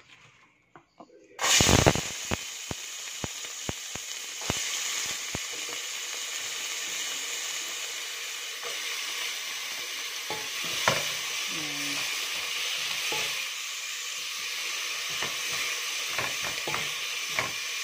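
Chopped onion dropped into hot olive oil in a metal pot: a loud sizzle starts suddenly about a second and a half in and keeps on steadily. A few light clicks come right after it goes in, and a wooden spoon stirs the onion later on.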